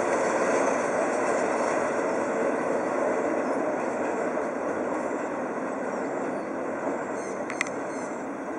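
Oil tank wagons of a freight train rolling along the track, a steady rumbling wheel noise that slowly fades as the tail of the train moves away. A brief sharp click near the end.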